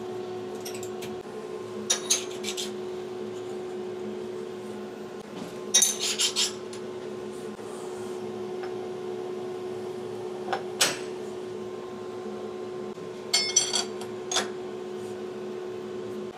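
Short bursts of metal clinking and clattering at intervals, from steel tooling such as a machine vise and stock being handled on a CNC mill, over a steady machine hum.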